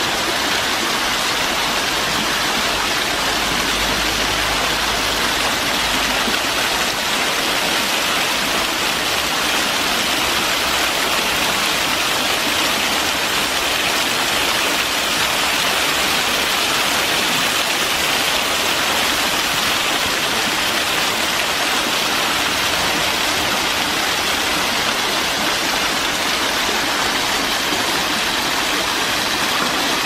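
Waterfall pouring and splashing down a wall of stone columns: a steady, even rush of falling water.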